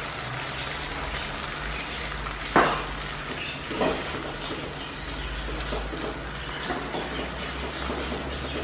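Chilli-tomato sauce sizzling steadily in a nonstick kadai after a splash of water is added, being stirred with a spatula. Two sharp knocks of the spatula against the pan, about two and a half and four seconds in.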